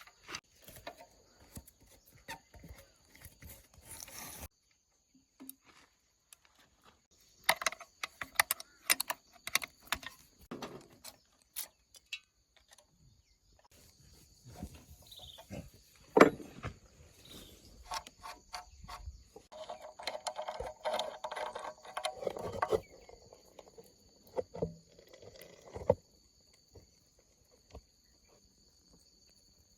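Irregular clicks and knocks, the loudest about sixteen seconds in, over a steady high chirping of crickets; no engine is running.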